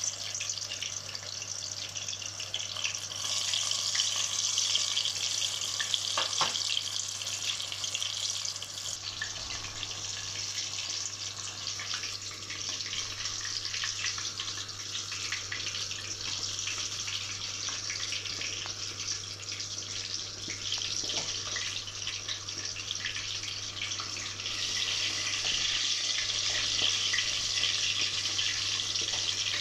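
Eggplant slices deep-frying in a pot of hot oil: a steady sizzle that swells and eases, with a few light clicks and a low steady hum underneath.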